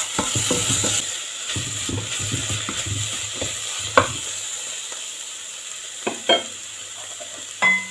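A spoon stirring and scraping grated carrot cooked in butter and sugar in a nonstick pot, over a steady sizzle. The spoon knocks sharply against the pot three times in the second half, when the stirring eases off.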